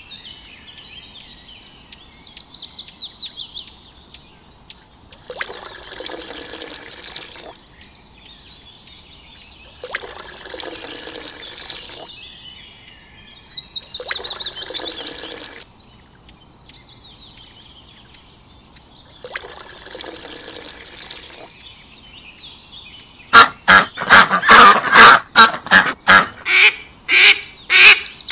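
Water poured from a small cup into a shallow miniature pond in four pours of about two seconds each, with high bird chirps and trills behind. Near the end, loud, rapid duck quacking takes over, several calls a second.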